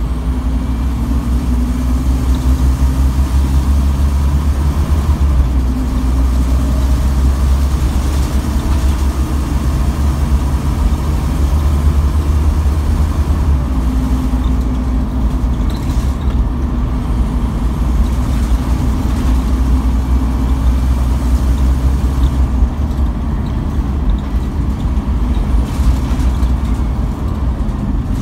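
Scania N230UB OmniCity bus heard from inside the saloon while under way: its nine-litre five-cylinder diesel engine gives a deep, steady drone whose pitch shifts a few times with speed, over road noise.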